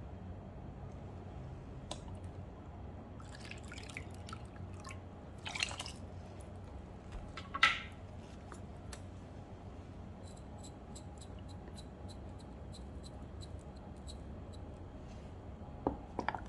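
Liquid dripping and lightly splashing into a rice cooker pot full of rice, tomato and broth: a few scattered drips, the loudest about eight seconds in. Later comes a run of light, evenly spaced ticks, about three a second, and near the end a wooden spatula starts stirring the wet rice.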